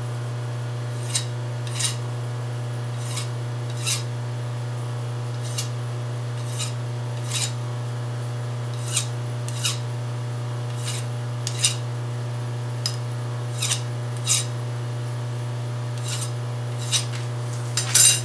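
Hand file deburring the edges of a freshly milled metal part: short rasping strokes about once a second, irregularly spaced, over a steady low hum.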